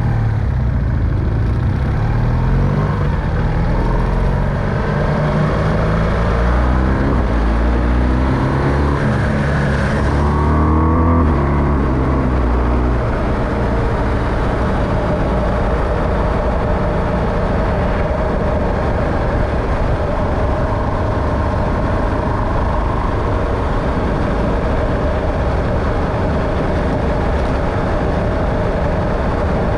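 Motor vehicle engine running while driving. The engine note climbs several times during the first twelve seconds or so, as if it is pulling up through the gears, then holds steady at a cruise.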